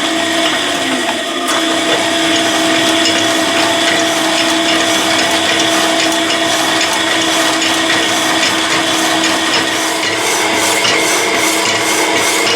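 Power hacksaw running and cutting through metal stock: a steady motor hum with a rasping saw-blade sound. A regular stroke rhythm stands out near the end.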